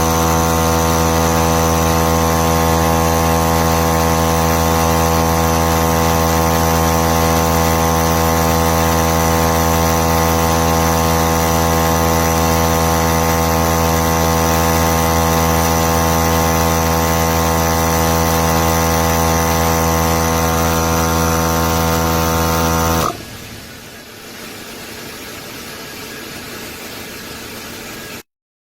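Portable 12-volt tire inflator compressor running at a steady, even pitch, then shutting off suddenly about 23 seconds in, leaving a fainter hiss that cuts out shortly before the end.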